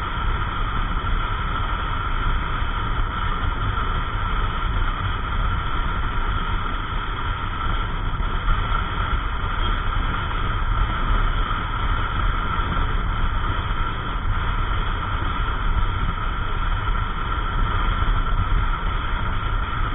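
Yamaha NMAX 155 scooter riding at a steady speed: its single-cylinder engine running under a constant rush of wind and road noise on the camera's microphone.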